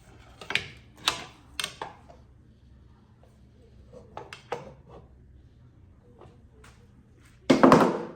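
Metal knocks and clinks from the parts of a GM 9.5-inch rear axle being handled as it is taken apart. A few sharp knocks come in the first two seconds and softer ones a few seconds later; near the end comes a louder, longer clatter.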